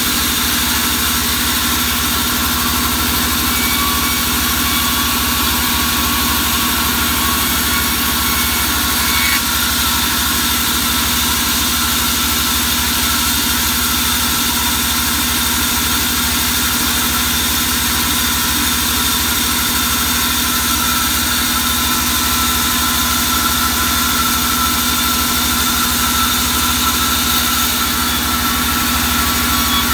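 Vertical band saw running steadily: a constant machine drone with a steady hum.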